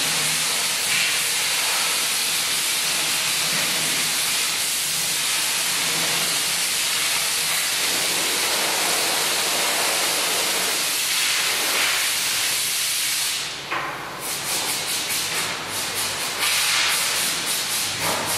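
A loud, steady hiss of rushing air or spray. About thirteen seconds in it breaks into a quick run of short hissing bursts, then one longer burst near the end.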